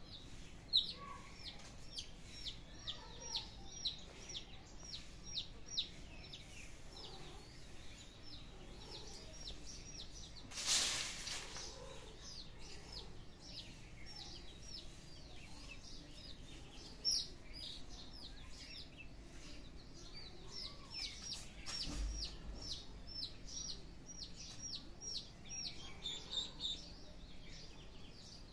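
Small birds chirping, a steady run of short high downward-sweeping calls at about two or three a second. A brief rush of noise comes about a third of the way in, and a low thump a little past three quarters.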